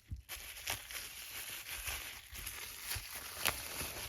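Packing material rustling and crinkling as a padlock is unwrapped by hand, a steady noise that starts a moment in, with a few sharper crackles along the way.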